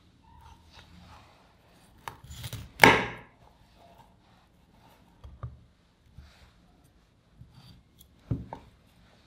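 A chef's knife cutting broccoli florets off the stalk on a bamboo cutting board: crisp crunches through the stems and light knocks of the blade on the wood. The loudest crunch comes about three seconds in, with a few softer cuts after it.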